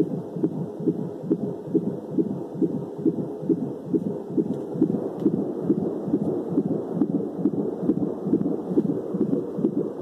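Home fetal doppler sounding through a Bluetooth speaker: fast, even whooshing pulses of an unborn baby's heartbeat.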